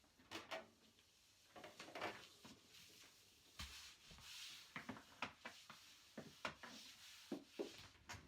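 Quiet handling sounds of a Quickle Wiper floor mop: scattered light clicks and knocks of plastic against the floor, with a soft rubbing swish over the floor about halfway through. No vacuum motor is running.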